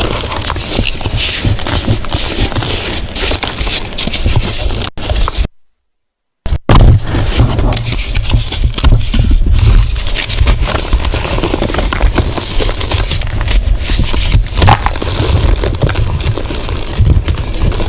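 Blocks of gym chalk being crushed and crumbled close to the microphone: dense, irregular crunching and crackling, broken by a silent gap of about a second some five and a half seconds in.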